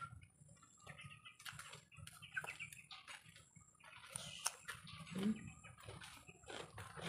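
Faint close-up eating sounds: chewing, with short clicks and snaps of fingers working rice on a banana leaf. Chickens cluck now and then in the background, and a thin steady high tone runs underneath.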